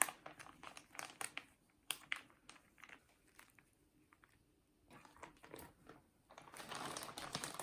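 Plastic zip-top bag being sealed and pressed to squeeze the air out: scattered soft crinkles and clicks, a quieter pause in the middle, then denser crinkling near the end.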